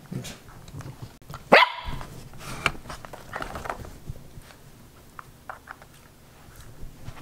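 Corgi puppy barking: one sharp, high bark about a second and a half in, followed by a couple of softer barks.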